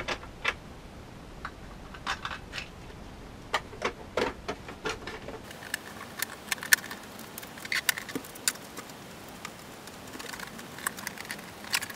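Irregular light clicks, taps and rustles of a stormtrooper helmet and its ear cap being handled and turned over by hand.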